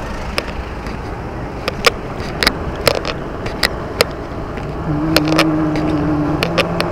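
Road traffic noise with sharp, irregular clicks and knocks; a steady engine hum joins about five seconds in.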